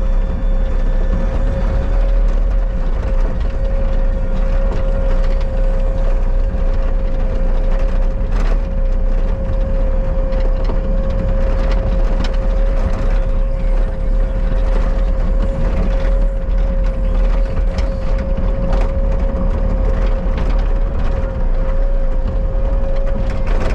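Bobcat skid steer running under work, its engine rumbling low with a steady high whine, and scattered clanks and knocks.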